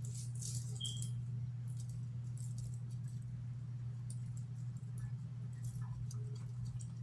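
Scattered light clicks and rattles, a cluster in the first second and more spread through the rest, over a steady low electrical hum.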